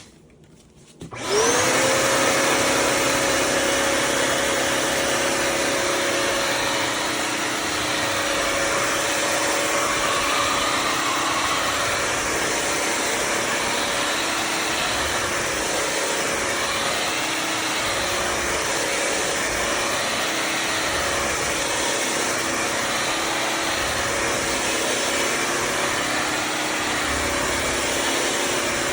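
Bissell CrossWave HydroSteam Pet wet-dry vacuum switching on about a second in, its motor whine rising quickly and settling into a steady run.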